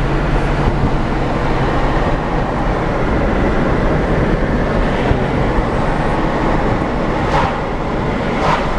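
Steady rumble of a vehicle on the move, with two brief sharper noises near the end.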